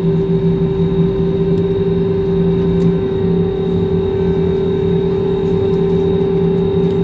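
Airbus A321 jet engines running at low taxi power, heard from inside the passenger cabin: a steady hum with a strong even tone over a lower drone that wavers slightly.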